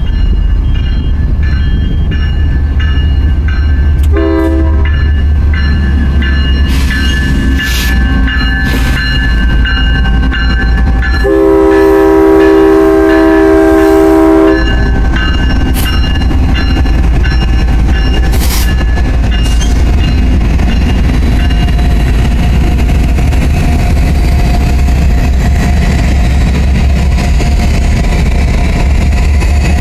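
Grade-crossing bell ringing with a steady low rumble as a Union Pacific diesel freight approaches, then a short horn toot about four seconds in. A long locomotive horn blast comes between about 11 and 15 seconds, and the lead diesel locomotives then rumble through the crossing.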